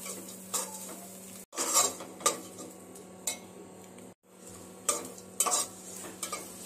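Metal spoon scraping and clinking against a pot while chopped fried chicken is stirred in hot oil, with the oil sizzling steadily underneath: the chicken pieces are being fried a second time to brown them. The sound cuts out briefly twice.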